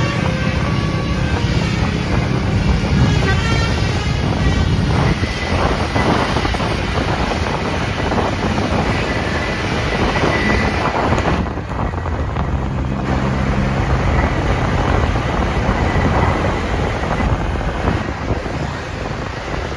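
Road noise of passing buses with strong wind buffeting the microphone.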